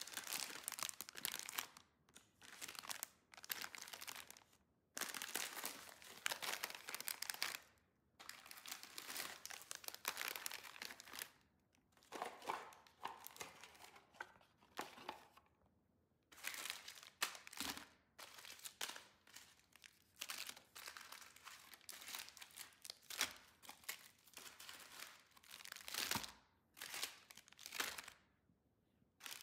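Plastic snack bags and granola-bar wrappers crinkling in short, irregular bursts as they are handled and set into a woven basket, with brief pauses between.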